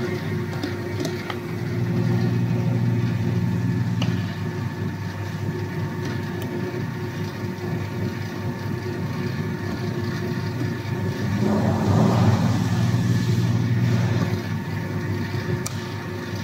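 Automatic dough sheeting machine running: its electric motor and rollers give a steady hum, growing louder for a couple of seconds about two seconds in and again around twelve seconds in as the rollers work the dough sheet.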